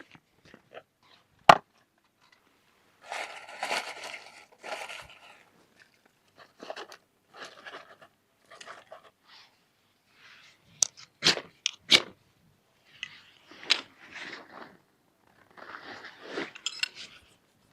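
Intermittent crunching and rustling handling noises from cooking preparation, broken by a few sharp knocks, several of them close together a little past the middle.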